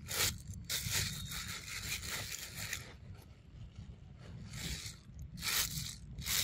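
A macaque eating ripe mango: wet chewing and lip-smacking, in a run of short, clicky bursts with a longer spell of about two seconds early on.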